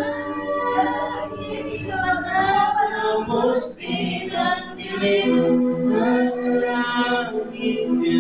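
Worship band performing live: several voices, mostly female, singing a song together over guitars and bass.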